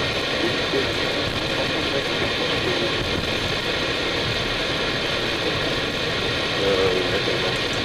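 Steady background noise on the flight deck of an Airbus A319, an even mechanical hum of engines and airflow with no distinct events.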